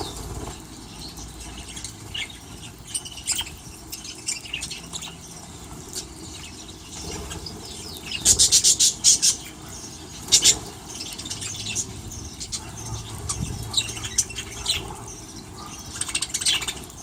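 Small aviary birds chirping and calling in short, scattered high notes, with a burst of rapid repeated calls about eight seconds in.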